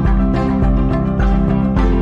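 Background music with a steady beat, about two bass pulses a second.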